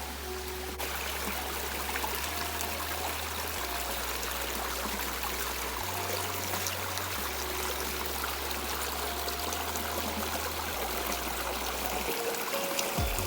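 Steady rushing of water at a small waterfall and its stream, growing louder about a second in. Soft background music bass notes run beneath it.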